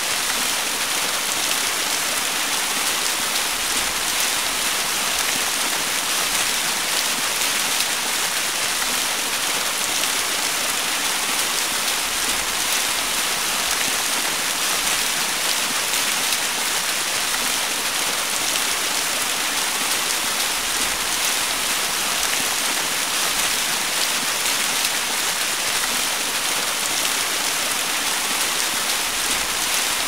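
Tiny waterfall splashing in a steady, even rush of falling water, bright and hissy rather than deep, with no breaks or changes.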